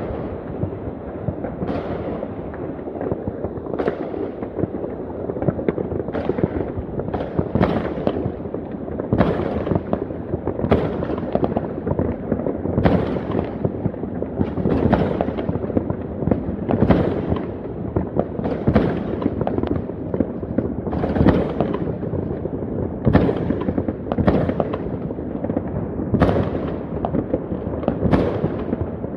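Many distant fireworks going off at once: a continuous crackling din of rockets and firecrackers, with sharp bangs at irregular intervals about every second.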